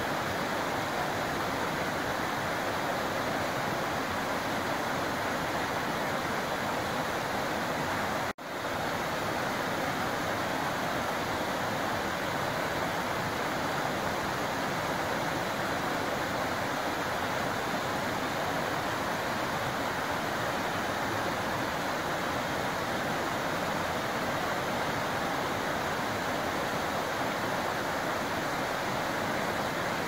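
Rain-swollen forest creek rushing and cascading over rocks, a steady full rush of white water. The sound cuts out for a split second about eight seconds in.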